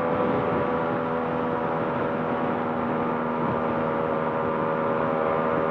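Yamaha RX two-stroke single-cylinder motorcycle engine, fitted with an aftermarket inbuilt expansion-chamber exhaust, running at steady highway cruising revs with an even, unchanging note. The engine is warmed up and running smooth.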